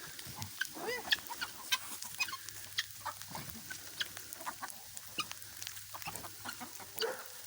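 Chickens clucking softly in short scattered calls, with small clicks and taps among them.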